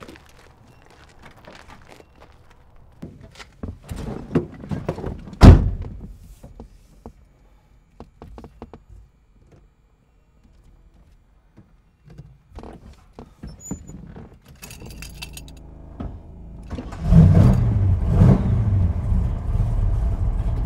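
Footsteps and small knocks, then one loud thunk about five seconds in. Keys jangle later, and a car engine starts with a sudden rise about seventeen seconds in and keeps running.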